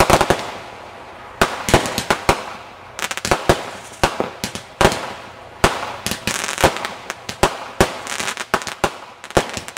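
Aerial fireworks bursting overhead: a rapid run of sharp bangs and pops in clusters, with a brief lull about a second in.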